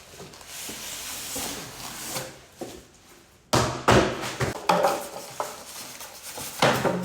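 Cardboard box and packaging of a new appliance being opened and handled: rustling and scraping, then from about halfway a run of louder knocks and thuds.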